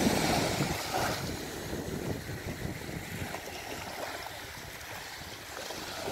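Small sea waves washing onto a beach under wind buffeting the microphone, louder in the first second and then easing to a steady wash.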